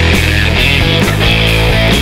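Loud background rock music with electric guitar and a steady beat.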